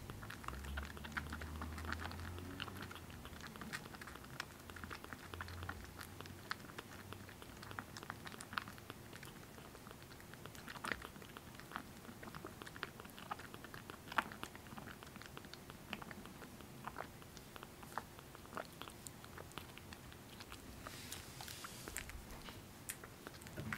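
Kitten suckling milk from a nursing bottle: a long run of small, irregular clicking suckling sounds. A short rustle comes near the end as the kitten lets go of the bottle.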